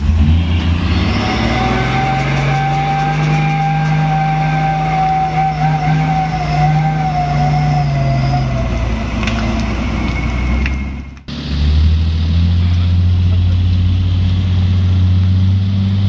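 Heavy diesel truck engine pulling hard, its pitch rising about a second in, holding for several seconds, then falling away. A sudden break about 11 seconds in, then a truck engine running at a lower, steady pitch.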